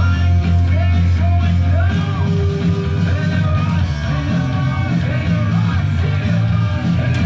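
Rock song playing, with singing over a full band.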